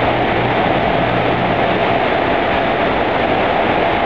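Heavy downpour of rain mixed with hail pelting the paving, a loud steady hiss.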